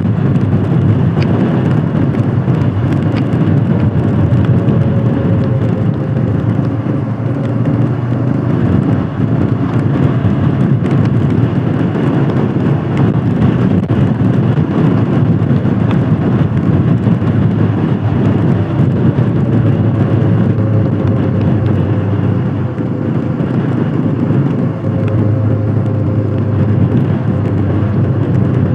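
Royal Enfield Himalayan Scram 411's 411 cc single-cylinder engine running steadily on the move, under a continuous rushing noise of riding.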